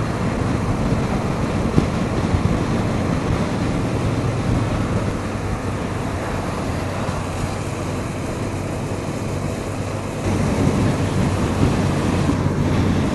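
Steady road and wind noise of a moving vehicle at speed. It gets a little louder, with a low hum, about ten seconds in.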